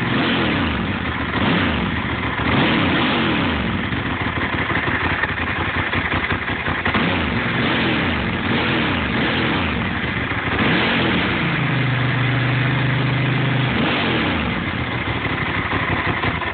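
Ducati 1000SS air-cooled L-twin engine running through GPR carbon slip-on exhausts with the dB killers fitted, revved repeatedly in rising and falling blips. Past halfway it is held at a steady higher speed for about two seconds before the blips resume.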